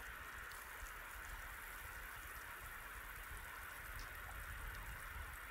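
Salmon fillet pan-frying in olive oil, a steady faint sizzle with small scattered pops.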